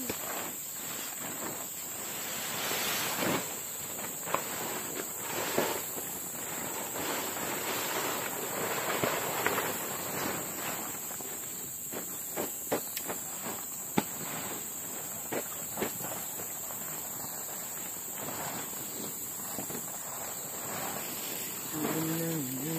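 Forest insects droning steadily at a high pitch, over rustling footsteps and handling noise with scattered sharp clicks and knocks. The sharpest knock comes about fourteen seconds in.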